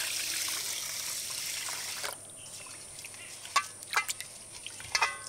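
Water poured into a steel bowl of rice to wash it, running steadily and stopping about two seconds in, followed by a few short, sharp splashes and knocks as the rice is worked in the water.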